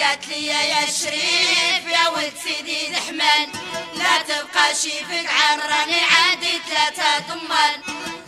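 Moroccan aita song: a woman's voice singing with heavy vibrato over instrumental accompaniment.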